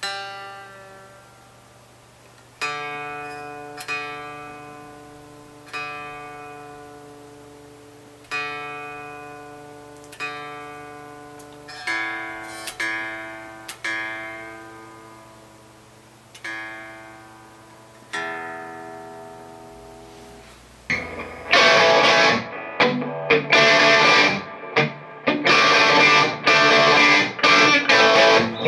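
Electric guitar strings plucked one at a time and left to ring out while being tuned, a note about every two seconds, each fading away. About 21 seconds in it cuts to loud chords and riffs played on the Gibson SG through a Vox AC30 amplifier.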